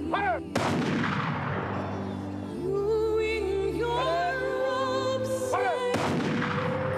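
Two volleys of a police honor guard's rifle salute, about five seconds apart, each with a long echoing tail, over music with a singing voice.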